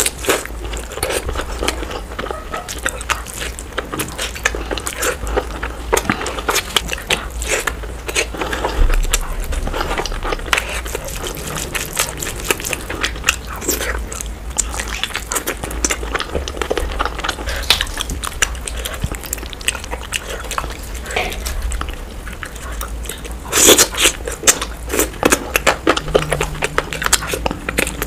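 Close-up eating sounds: biting and wet chewing of curry, rice and meat eaten by hand, a dense stream of clicks and squelches, with a louder cluster of bites near the end. The eating is played back at double speed.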